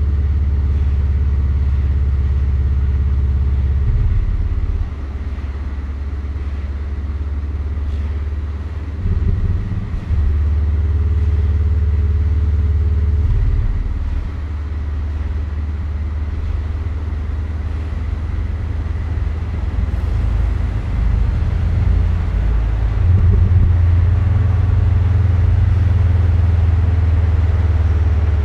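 Porsche 718 Boxster's turbocharged flat-four engine running while driving, a low drone that changes engine speed abruptly several times. It drops back about five seconds in, picks up again about ten seconds in, eases off again around fourteen seconds, then grows louder toward the end.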